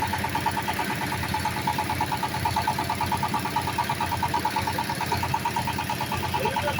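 Engine of a bored-pile concrete drilling machine running steadily, with a fast, even throb.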